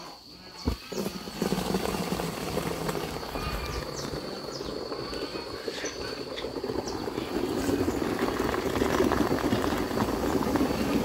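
A cow being milked by hand: streams of milk squirting into a bucket onto a thick head of foam, a dense frothy hissing that starts about a second in and grows slowly louder.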